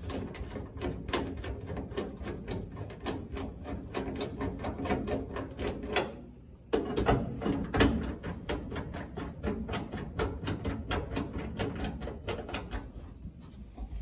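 Hand rivet-nut (nutsert) setting tool being turned to set a threaded insert in a drilled hole in the sheet-metal floor pan, clicking steadily about four times a second, with a brief pause about six seconds in.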